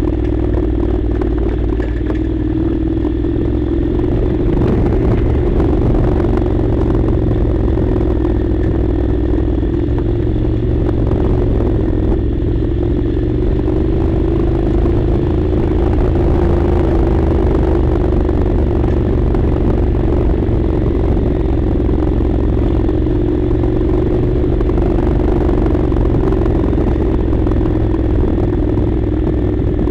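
Honda NC700 motorcycle's parallel-twin engine running under way at a fairly steady speed, its note rising and easing only slightly, over a low rumble.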